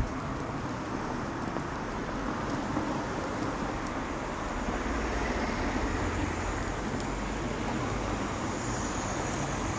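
Street ambience of light town traffic: cars passing and a steady hum of road noise.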